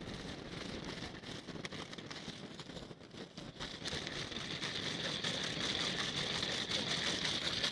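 Large geared beach reel paying out kite line, its gears whirring and ticking in a steady run that grows louder about halfway through, over wind noise.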